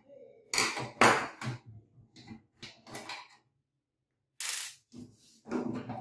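Metal clinks and knocks from hands and tools working on a microwave oven's sheet-metal casing, a string of short sharp sounds, loudest about a second in, then a brief scraping burst about four and a half seconds in.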